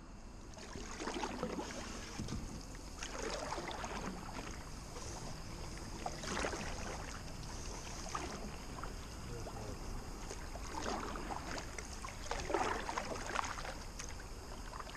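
Canoe being paddled on calm water: the paddle swishes through the water every few seconds, at an uneven rhythm.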